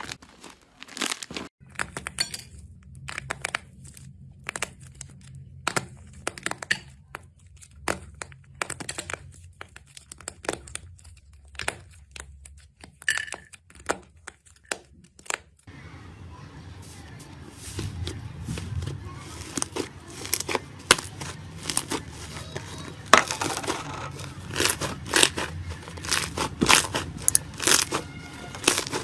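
Slime being squeezed and poked by hand, giving irregular crackling pops and clicks. They are sparser in the first half and denser and louder after a change about sixteen seconds in.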